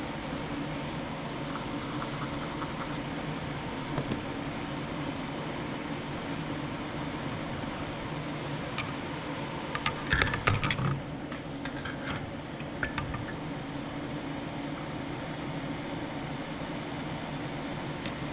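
Steady low machine hum, like a fan, with scattered small clicks and a short burst of clatter about ten seconds in, typical of tools and small parts being handled on a workbench.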